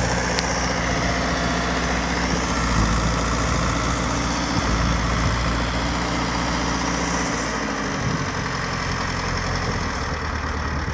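Ursus 912 tractor's diesel engine running hard as its rear wheel spins in place in the snow. About seven and a half seconds in, the engine note drops.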